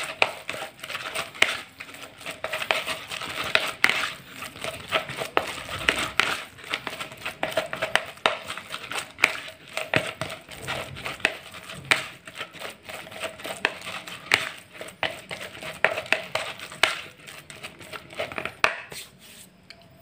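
Wet, crumbly fish-bait paste being stirred and squeezed by hand and with a plastic rice paddle in a plastic bowl: a dense run of irregular clicks and scrapes that stops near the end.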